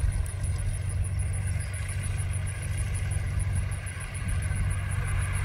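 Distant Cessna 172 Skyhawk's piston engine running at low taxi power, heard as a steady low rumble.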